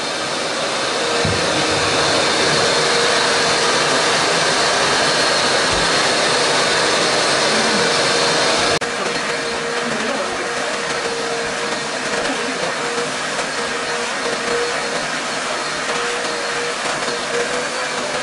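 Wet/dry shop vacuum running steadily with a constant motor whine as it sucks floodwater off a soaked floor. The sound drops a little, abruptly, about halfway through.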